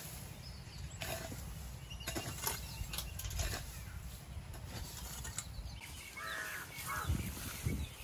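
Hoes scraping and chopping through dry grass and soil in irregular strokes. A crow caws briefly a couple of times near the end.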